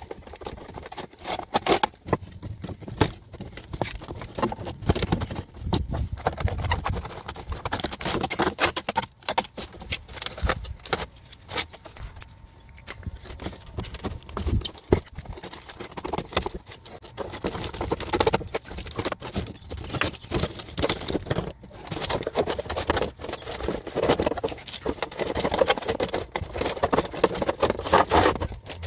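Irregular clattering, clicking and scraping of objects being handled, with no steady pattern.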